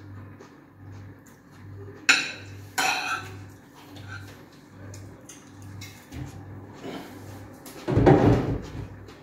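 Metal cutlery clinking sharply on a ceramic dinner plate, twice about two seconds in, then a dull low thump near the end.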